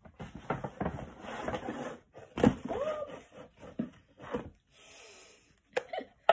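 Rustling and crinkling of a paper shopping bag as a hand rummages inside and pulls out a small cardboard box, with a sharp knock about two and a half seconds in, a short sliding hiss, and sharp clicks near the end as the box is opened.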